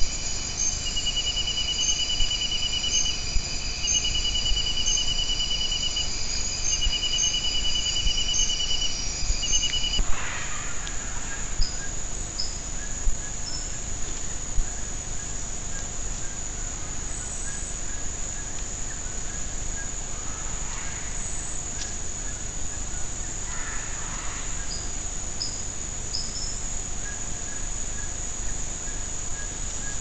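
Night insect chorus of crickets: a steady high-pitched drone with a pulsing trill in runs of a second or two, repeated for about the first ten seconds. After an abrupt change about ten seconds in, a single steady high drone with occasional short chirps and a few soft clicks.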